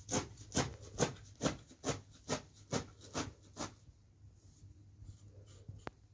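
A large kitchen knife chopping a heap of fresh green herbs on a metal tray: about nine steady strokes, roughly two a second, each cutting through the leaves onto the tray, then the chopping stops about four seconds in and only a few faint ticks follow.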